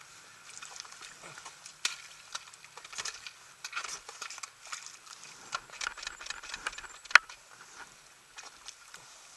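Irregular knocks, clicks and scuffs of a dirt bike being pushed and hauled out of deep mud, with one sharp knock about seven seconds in.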